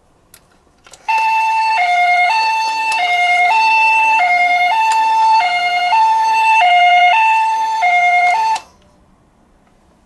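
Japanese-style two-tone ambulance siren, 'pee-po', alternating evenly between a high and a low note about every 0.6 s. It starts about a second in after a few faint clicks and cuts off abruptly near the end.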